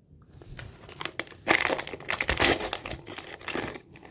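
Small plastic toy packaging crinkling and rustling as it is handled and opened, starting about half a second in and loudest around the middle.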